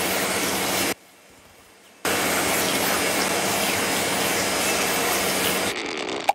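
Cartoon vacuum cleaner running with a loud, steady rushing noise over a low hum. It cuts out for about a second, starts again, then fades near the end, followed by a sharp click.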